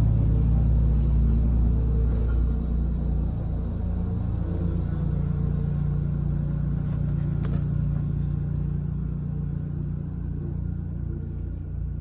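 A steady low machine drone, a motor running at constant speed, with one faint click past the middle.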